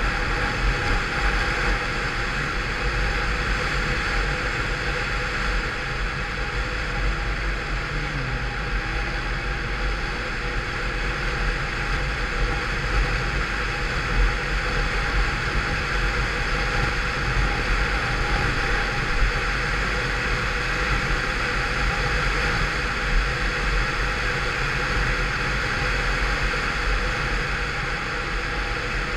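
Peugeot Vivacity 50cc scooter engine running steadily under way at road speed, mixed with heavy wind rush and low buffeting.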